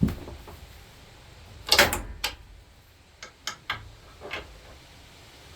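Metal hand tools knocking and clinking against the lawn tractor's metal parts while working on a pulley bolt: a loud knock about two seconds in with a second one just after, then a few lighter clicks.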